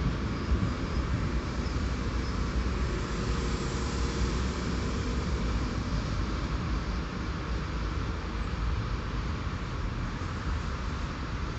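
An electric multiple-unit passenger train rolling slowly along a station platform as it brakes to a stop. Its wheels and running gear make a steady rumble with no sudden knocks.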